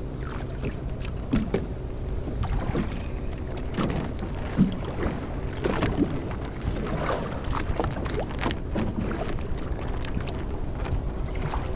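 Motorboat engine running steadily under way, a constant low hum, with irregular splashes and knocks of water against the hull.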